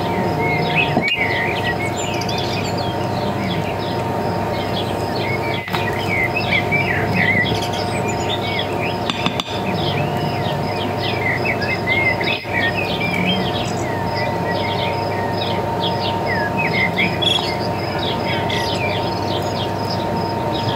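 Many small birds chirping and twittering, short rising and falling calls that come thick and fast throughout, over a steady hum.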